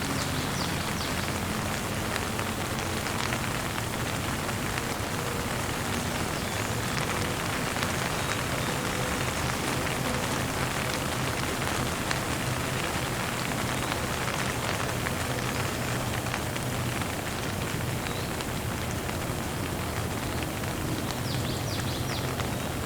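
Light rain falling steadily, a dense even patter of drops hitting a surface.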